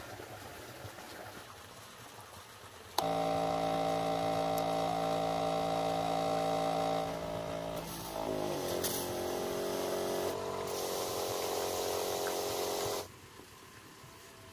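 Backpack pesticide sprayer's pump motor running with a steady hum. It starts suddenly, its pitch dips and wavers for a moment partway through, then it holds steady again and cuts off suddenly.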